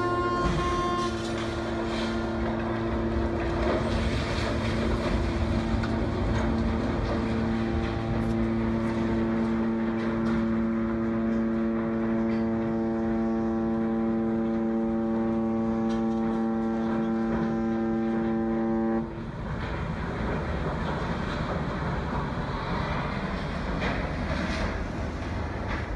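Ship's horn sounding one long unbroken blast, a steady deep tone with several overtones, over a noisy background; it cuts off suddenly about 19 seconds in, leaving a rushing din. The horn is a warning as the cruise ship drives out of control into the dock.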